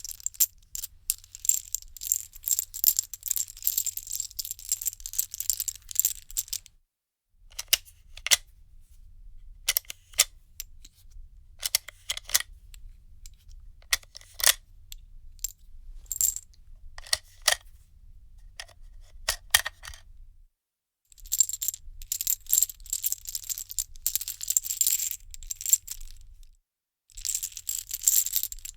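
Small metal pieces clinking and jingling. Dense runs of rapid tinkling alternate with single clinks spaced about a second apart in the middle stretch.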